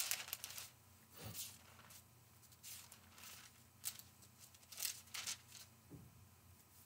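Faint rustling of paper pages being turned, in short separate rustles every half-second to second, while a book passage is being looked up.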